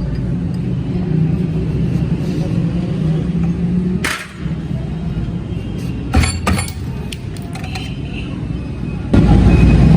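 Suzuki Every's small three-cylinder engine running steadily, with a few sharp metallic clinks in the middle. It gets louder about nine seconds in.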